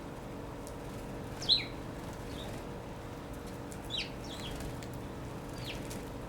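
Several short, sharp bird chirps: a loud one about a second and a half in, a faint one soon after, a quick cluster of three around four seconds, and one more near the end.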